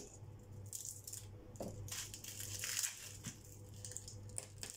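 Papery garlic skins crackling and rustling as cloves are broken off the bulb and peeled by hand, with a few short light clicks.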